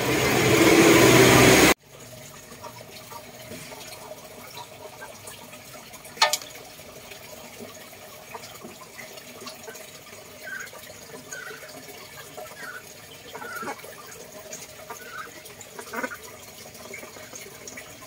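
Water running loudly into a fish pond, cut off abruptly about two seconds in. A quieter steady wash of water follows, with one sharp click and a few faint short chirps.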